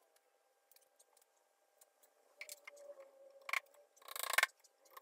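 Faint workshop handling sounds during a glue-up of hardwood boards: scattered light clicks and knocks, then a couple of short scrapes from about three and a half seconds in, the loudest just after four seconds.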